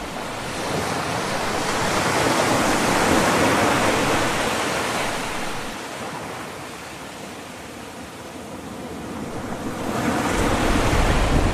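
Ocean surf washing up the shore: a wave swells to a peak about three seconds in and ebbs away, and the next one builds near the end. Wind buffets the microphone in the last second or so.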